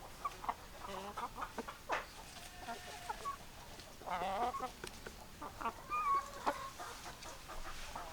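Domestic hens clucking, with many short irregular clucks overlapping, and a louder, longer wavering call about four seconds in.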